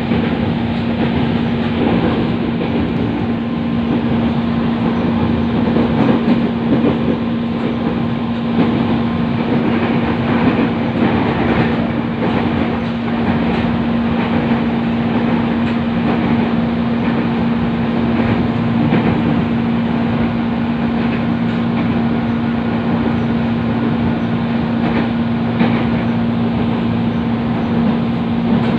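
Commuter electric train running between stations, heard from inside the carriage: a steady rumble of wheels on rail under a constant low hum, with faint scattered clicks.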